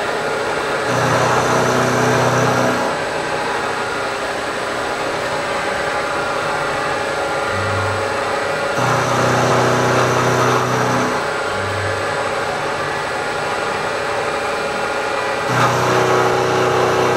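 Bridgeport milling machine end-milling the flats of a hard metal block: a steady mix of spindle whine and cutting noise. A lower hum swells in three times, about a second in, about nine seconds in and near the end.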